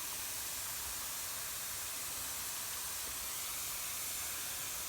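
Lawn sprinkler heads spraying water in a steady, even hiss.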